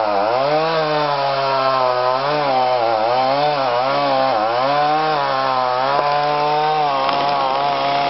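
Stihl MS290 two-stroke chainsaw at full throttle in the felling cut through an oak trunk. Its engine pitch dips and recovers again and again as the chain loads up in the wood, holding steadier near the end.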